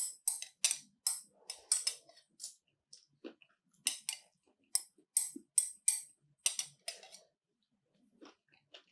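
Close-miked chewing and mouth sounds: an uneven run of short, wet clicks, about two or three a second, that stops about seven seconds in.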